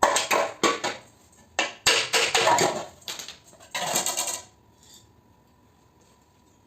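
Metal pieces clattering and clinking together in a quick run of sharp knocks for about four and a half seconds, then stopping.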